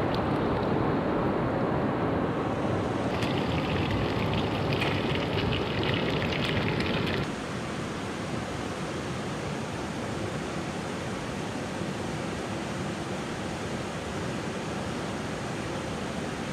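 Rushing water of a hill stream, a steady, even noise. The sound changes abruptly about seven seconds in, becoming slightly quieter and smoother.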